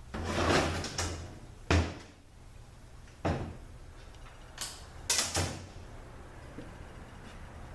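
Metal parts and hand tools knocking and clanking during the teardown of an automatic transaxle: about six sharp knocks spread over the first five seconds, the first one longer and rattling.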